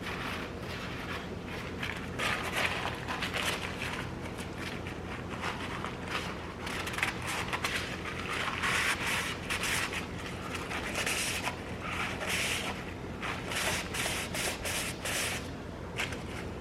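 Irregular scraping and rustling of hands working with the oil filter cap and the new filter parts, in uneven bursts over a steady low hum.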